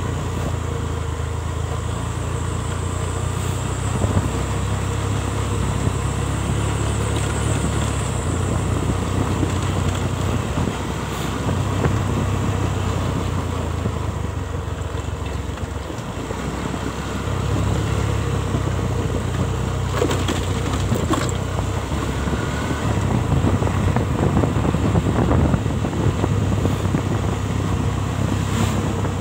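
Motorcycle engine running while riding on the road, with steady road and wind noise. The engine eases off a couple of times and picks up again, and a few short knocks come through.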